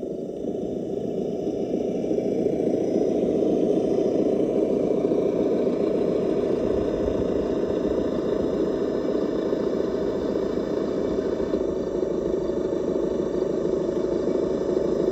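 Sound-simulator engine idle from an RC crawler's onboard speaker: a steady low truck-engine rumble.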